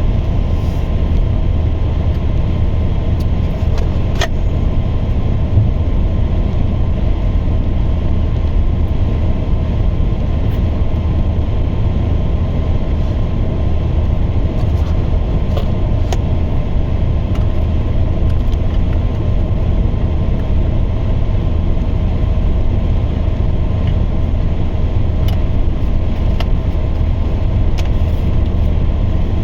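Steady road and engine noise heard from inside a moving campervan's cab: a constant low rumble with a few faint clicks.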